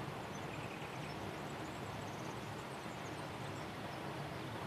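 Quiet outdoor ambience: a steady low background hiss with faint high-pitched chirps in the first half.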